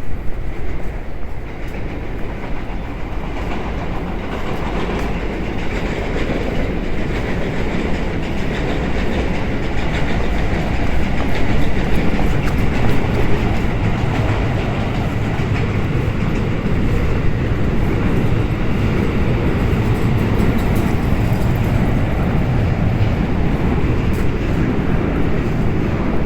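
A train running past, a steady rumble of wheels on rails that grows a little louder partway through and holds.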